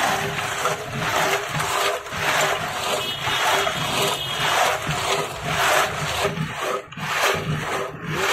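Kulfi moulds and ice grinding and scraping against each other inside a burlap-wrapped clay pot as it is worked back and forth by hand, in repeated rough strokes. This churning in ice is how the kulfi is set without a machine.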